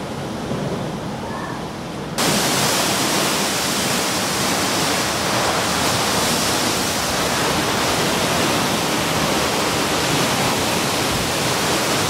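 Storm wind rushing through trees, a loud, steady noise without pitch. About two seconds in it jumps abruptly to a louder, brighter hiss.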